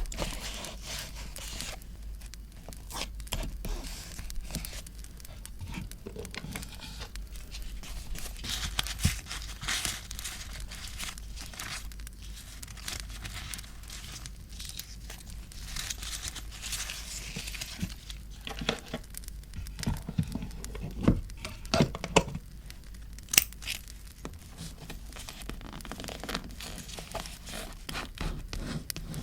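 Paper being torn, crinkled and handled for scrapbooking, with stretches of rustling and scattered sharp taps and clicks.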